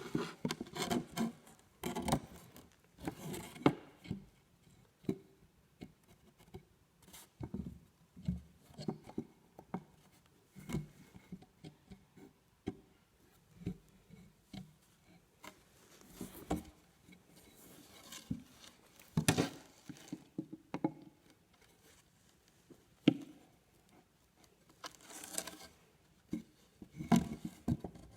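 Irregular wooden knocks, taps and short scrapes as a board and a 2x4 block are handled and fitted together, with small clicks in between.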